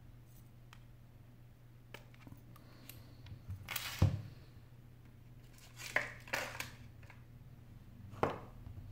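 SIM tray of an iPhone 8 Plus being pushed out with a metal ejector pin and handled: several small sharp clicks and light knocks, the loudest about four seconds in, over a faint steady hum.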